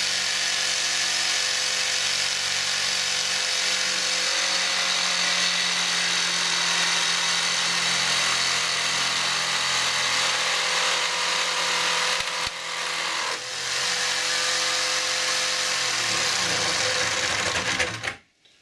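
Electric jigsaw mounted upside down under a table, running steadily while its metal-cutting blade saws through a thin brass plate. It runs down and stops near the end.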